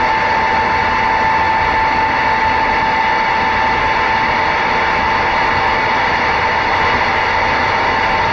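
CB radio receiver static: steady band hiss from an open channel between skip transmissions, with a steady heterodyne whistle that slowly fades.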